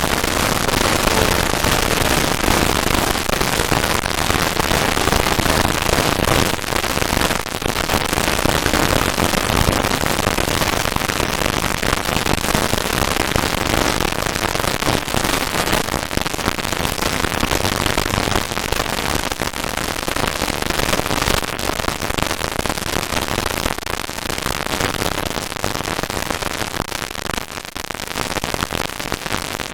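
Continuous dense crackling noise, a steady hail of fine pops at all pitches that thins slightly near the end.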